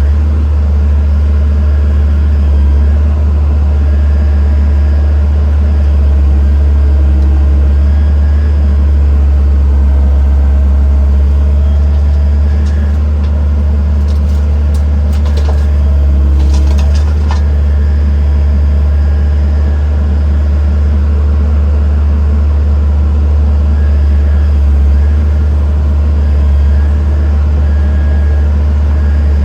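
Heavy diesel engine running steadily with a deep, even drone. A few faint knocks come about halfway through.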